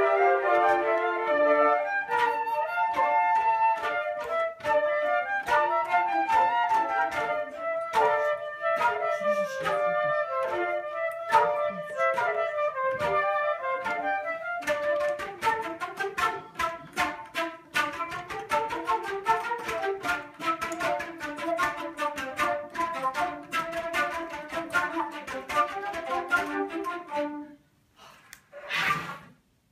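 Flute ensemble playing in parts together. About halfway through the playing turns to quick short notes, and near the end the music stops abruptly, followed by one brief noise.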